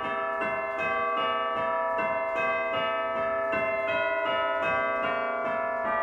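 Church bells ringing in a quick, even sequence, nearly three strikes a second, at several different pitches, each bell ringing on under the next.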